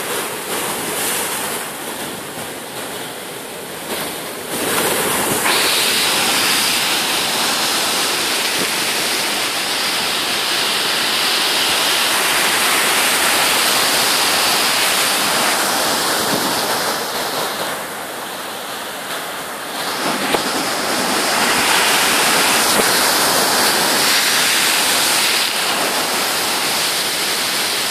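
Heavy surf breaking against a concrete breakwater and its tetrapods: a continuous rush of churning water and spray. It grows louder about four seconds in, eases briefly about two-thirds of the way through, then surges again.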